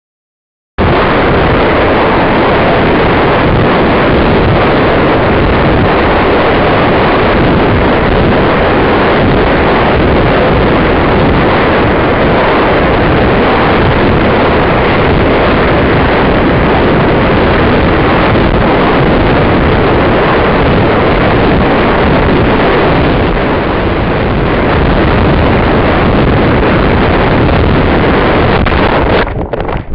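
Loud, steady wind rushing over the microphone of a descending balloon payload capsule, starting suddenly about a second in. Near the end it breaks into a few brief knocks and rustles as the capsule drops into the treetops.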